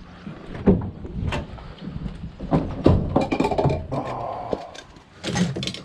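Knocks and clattering of scrap items being moved and loaded into a van, with a longer scrape in the middle.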